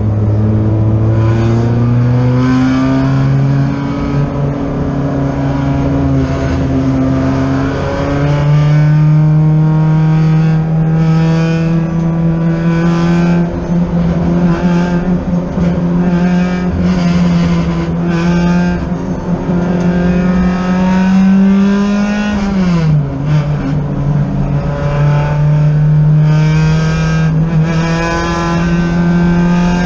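Race car engine heard from the car's own in-car camera under racing load, its note climbing steadily through the revs. About 8 s in the pitch steps up, and about three-quarters of the way through it drops sharply before climbing again, over a constant rush of wind and road noise.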